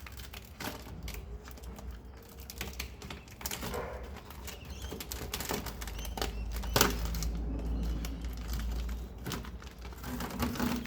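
Irregular clicks, taps and rustling of hand work on the inside of a car door, as a taped-on covering is pulled away. There is one sharp knock about seven seconds in.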